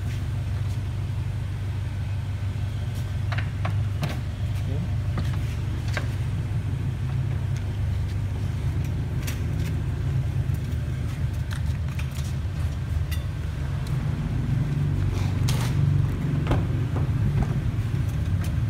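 Steady low rumble with scattered knocks and clatter of household things being handled and loaded into a car.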